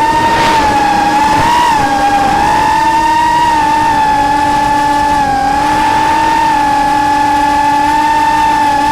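FPV quadcopter's electric motors and propellers whining as it cruises, the pitch wavering slightly with throttle and rising sharply near the end.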